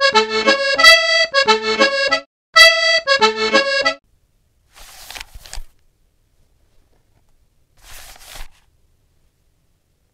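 Short accordion tune, the same quick phrase played twice, stopping about four seconds in. Later come two brief, faint scratchy noises.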